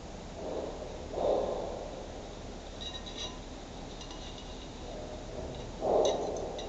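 Faint, light clinks of long planting tweezers touching a round glass florarium bowl, a few times. Three short breathy puffs, the loudest sounds, come about a second in and near the end.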